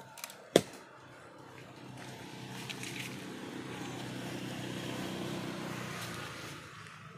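A sharp click about half a second in, then a motor vehicle's engine passing by, humming steadily as it grows louder and fades away over about five seconds.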